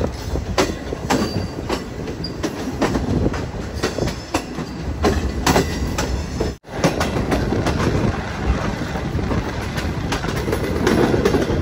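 Green Line Express passenger coaches running along the track: a steady low rumble with irregular clacks of the wheels over rail joints. The sound breaks off for a moment just past halfway.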